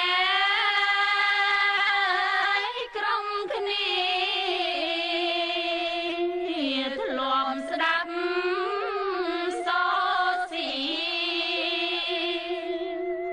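A Khmer song: a solo voice sings long, held, wavering notes on drawn-out vowels, with brief breaks between phrases.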